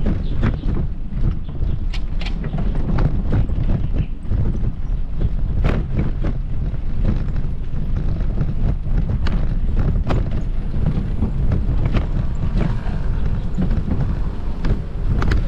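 Footsteps on a paved path, irregular clicks a step or so apart, over a steady low buffeting of wind on the microphone.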